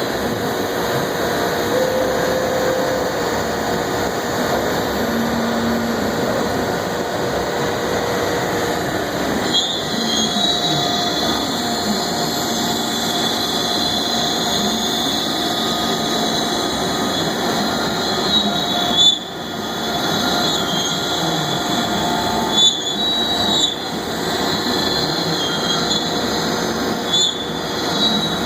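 AXYZ Series 4008 CNC router running under power: a steady machine noise with a high whine that shifts in pitch, broken by a few brief sharp sounds in the second half.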